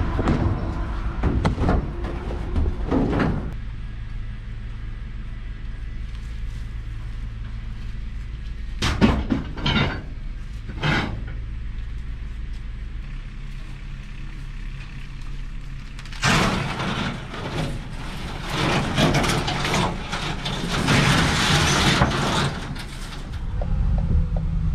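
Knocks and scraping as a metal washing machine or dryer is shoved into the cargo bay of a van, in several bursts, over a low steady hum.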